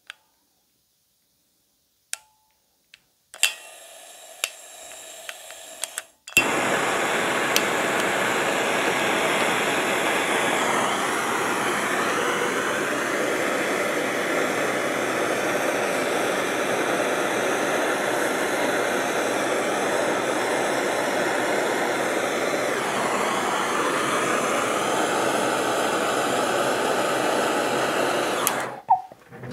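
Handheld gas torch: a low hiss of gas about three seconds in, then a click as it lights and a steady loud flame rush that runs for about twenty seconds before it is shut off near the end. It is heating a chainsaw flywheel to loosen it for removal.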